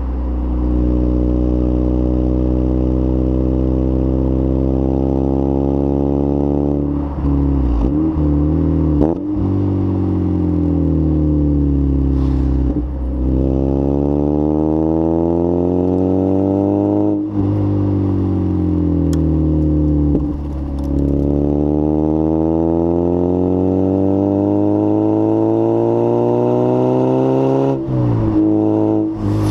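Lotus Elise 111S's 1.8 VVC four-cylinder engine running through a Bell & Colvill exhaust with a decat. Its pitch climbs and falls slowly several times, broken by short dips in level.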